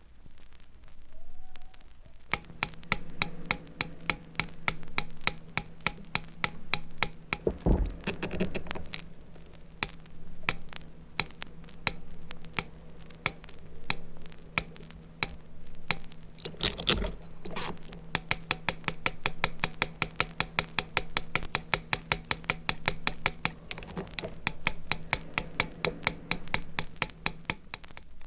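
A small motorised machine running with a steady hum and runs of rapid mechanical clicks, about ten a second, broken by two heavier thumps about eight and seventeen seconds in. It starts about two seconds in and stops just before the end.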